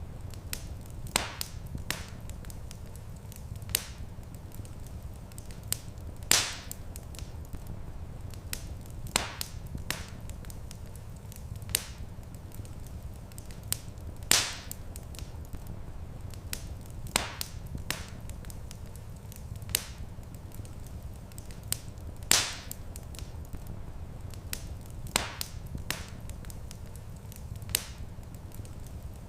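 Wood fire crackling in a stone fireplace: sharp pops and snaps at irregular intervals, a few much louder than the rest, over a steady low rumble.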